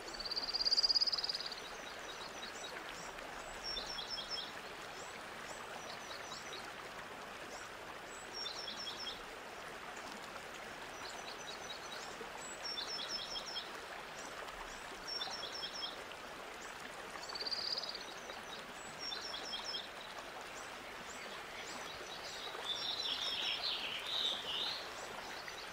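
Birdsong over a steady rushing background like running water: a small bird repeats quick series of high, short chirps every few seconds, with a couple of longer high whistles and a jumble of calls near the end.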